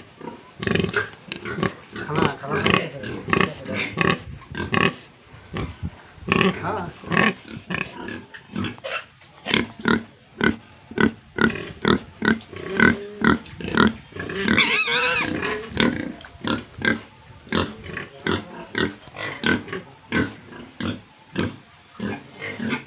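Domestic pigs grunting over and over, short grunts coming at about two a second through much of the stretch, with one longer, higher squeal about fourteen seconds in.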